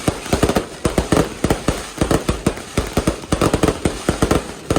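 Fireworks display going off in a dense, irregular barrage of sharp bangs and pops, several a second.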